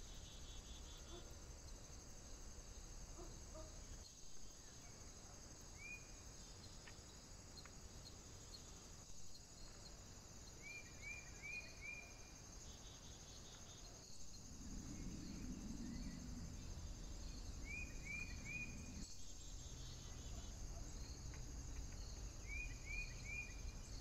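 Faint, steady high-pitched insect chorus, with short runs of three or four quick rising bird chirps every few seconds. A low hum joins in about halfway through, and the sound drops out briefly every five seconds or so.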